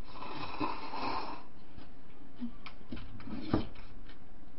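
Slurping broth from a small bowl, a breathy sucking hiss for about the first second and a half. It is followed by light clicks and a single knock about three and a half seconds in as the bowl is set down on the table.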